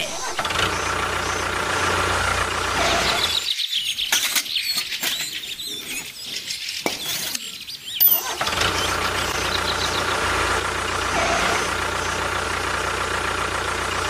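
A small motor running steadily, a low hum under a higher whine. It drops out from about three and a half seconds to about eight and a half seconds, when a few sharp clicks are heard, then runs steadily again.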